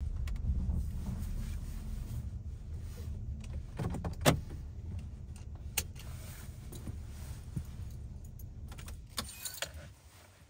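Inside a 2015 Kia Sedona minivan's cabin: a steady low engine and road rumble with a few sharp clicks, which dies away near the end as the engine is switched off, followed by a quick jingle of the car keys.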